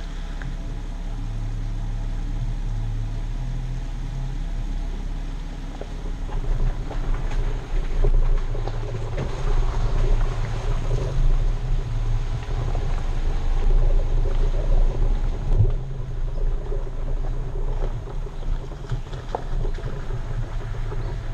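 Off-road vehicle driving slowly on a dirt-and-gravel trail, heard from a camera mounted outside by the tyre: steady engine drone with mud tyres crunching and knocking over stones. It grows louder and rougher from about six seconds in.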